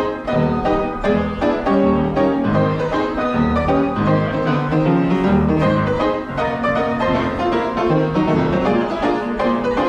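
Upright piano being played: a continuous run of chords over a moving bass line.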